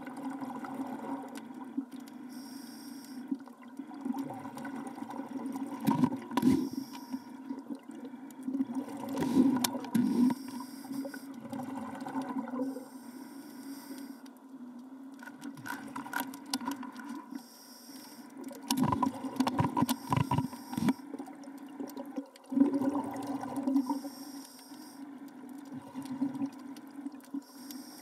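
Water noise: a steady low hum with a sloshing, bubbling wash that swells several times into louder irregular surges.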